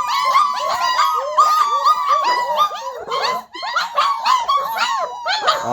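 A litter of young puppies whining and squealing together, many short, high cries overlapping without a break: the puppies are hungry and crying for food.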